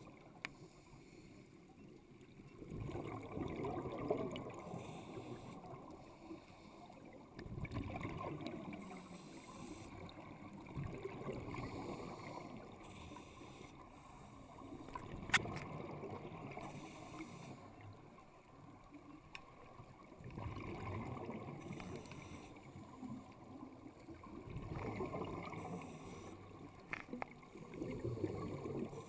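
Scuba diver breathing underwater through a regulator: a gush of exhaled bubbles about every four seconds, with faint hissing inhalations between them. Occasional sharp clicks, one louder about 15 seconds in.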